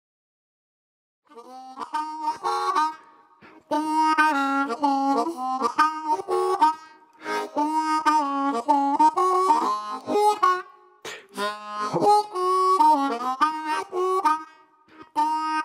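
Harmonica playing short melodic phrases with brief pauses and some bent notes, starting after about a second of silence.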